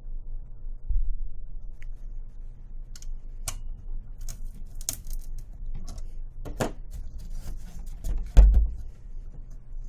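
Scattered small metallic clicks and ticks of an Allen key being seated in and turned on the Troy Alpha BattleRail's clamp bolts, with a dull thump about a second in and a louder one near the end as the rail and upper receiver are handled.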